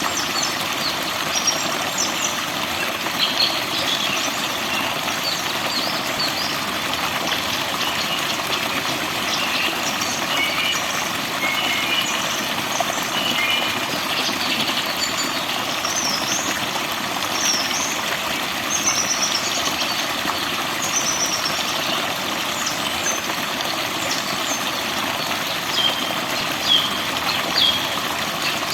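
Steady rushing of water, like a waterfall or stream, with songbirds chirping and whistling over it in short, scattered phrases.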